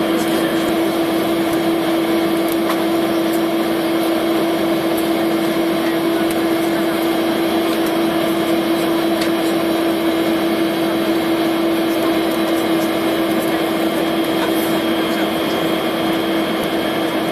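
Steady cabin noise inside a Tu-204 airliner on the ground: jet engines and air conditioning humming at an even level, with one strong steady tone running under a broad hiss.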